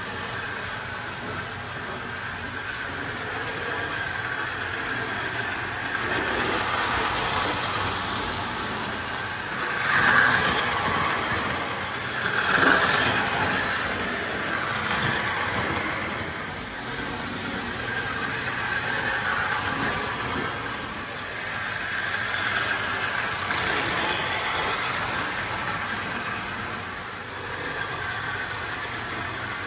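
Vintage O gauge electric toy train, a steam-type locomotive pulling a tender and two passenger cars, running on three-rail tubular track with a steady motor-and-wheel rumble. The sound swells and fades as the train circles the layout and is loudest about ten and thirteen seconds in, as it passes close. The motor has just been serviced and the wheels cleaned, and it is running nicely.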